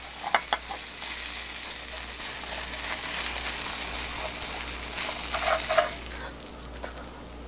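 Egg and oil sizzling steadily in a hot rectangular frying pan as a rolled cheese-filled egg omelette is slid out onto a plate with a spatula. A few light clicks of the spatula on the pan come about half a second in.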